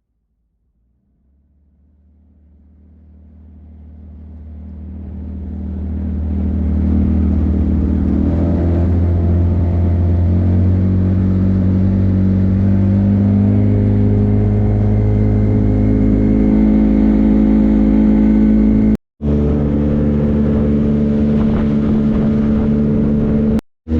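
A motor vehicle's engine running steadily, fading in over the first several seconds, its pitch shifting slightly, with two brief cut-outs near the end.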